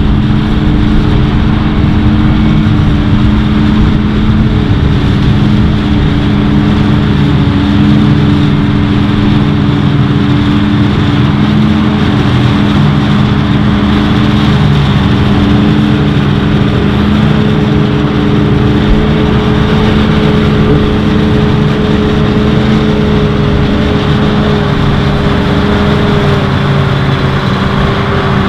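New Holland FR9060 self-propelled forage harvester chopping maize at full work, its engine and chopper running with a loud, steady hum of several held tones. The Massey Ferguson tractor pulling the trailer alongside runs with it. A slightly higher tone joins about two-thirds of the way in.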